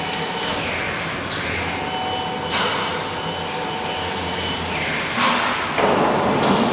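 CNC wood router with a 6 kW HSD spindle running and cutting, a steady machine noise with a faint whine. The cutting noise jumps louder about two and a half seconds in and again near the end.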